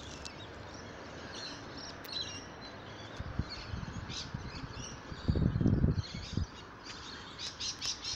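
Birds chirping in short, scattered calls over a steady background hiss, the chirps coming thicker near the end, with a brief low rumble about five seconds in.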